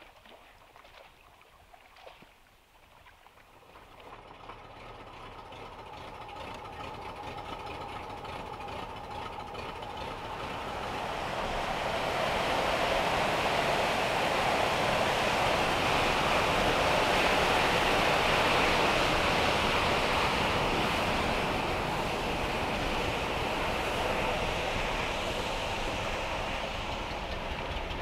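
Water gushing from a dam's outlet pipe into the river below: a steady rushing that swells up over the first dozen seconds and then holds loud.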